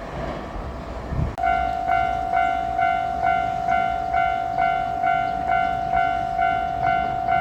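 Japanese level crossing warning bell starting to ring about a second and a half in, a steady 'kan-kan' at about two strikes a second. Before it, a rushing rumble and a low thump.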